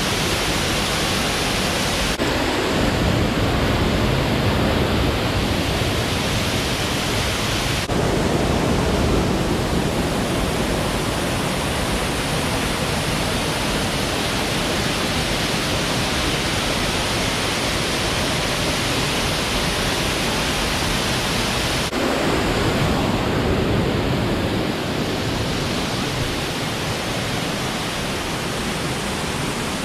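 Waterfall with loud, steady rushing water. Its tone shifts abruptly three times as the sound changes between shots.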